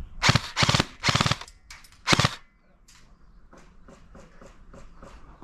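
Airsoft gun firing four short full-auto bursts of rapid shots. Three come in quick succession, and the last comes about two seconds in.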